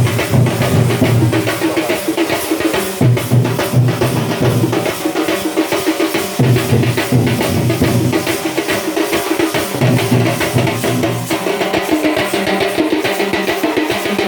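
Music with a steady drum-kit beat over a strong bass line.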